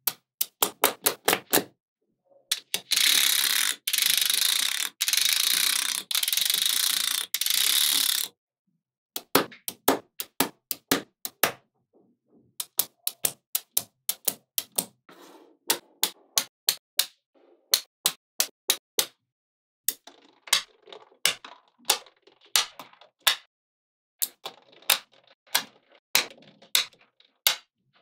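Small neodymium magnetic balls clicking sharply as blocks of them are snapped onto a larger magnetic-ball build, several clicks a second in bursts. About two and a half seconds in comes a stretch of dense, continuous rattling clatter that stops abruptly a few seconds later.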